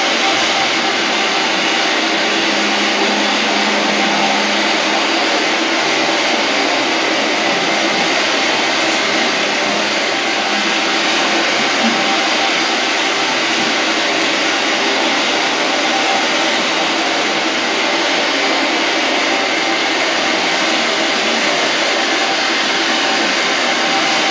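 Steady, unbroken rushing hiss from a film clip's soundtrack played over a lecture hall's loudspeakers.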